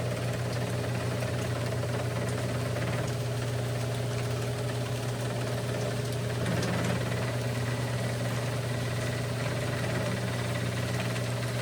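Genie IntelliCode IS900A garage door opener's motor running steadily with a low hum as it drives the door, cutting off at the very end; extremely quiet for one of these machines.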